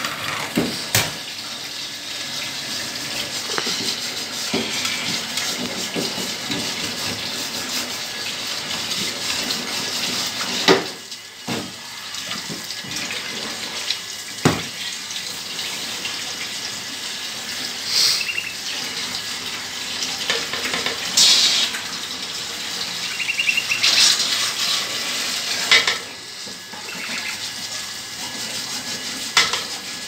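A steady rushing noise, with a few sharp clicks and knocks scattered through, the loudest about eleven seconds in.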